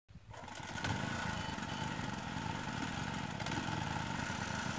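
A small engine running steadily, with a couple of light clicks in the first second.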